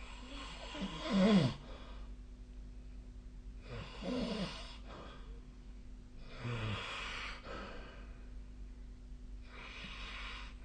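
A sleeping person snoring: four breaths about three seconds apart. The first is the loudest, with a low snoring tone that falls in pitch; the later ones are softer and more breathy.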